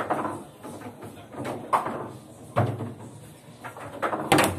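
Table football match: sharp plastic knocks as the ball is struck by the figures and the players rattle the rods. There are several knocks spread out, with the loudest pair near the end.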